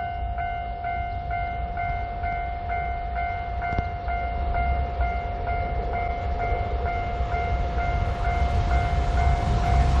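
Japanese level-crossing warning bell ringing steadily, a little over two strikes a second. Under it, the low rumble of an approaching freight train hauled by an EF210 electric locomotive grows louder toward the end.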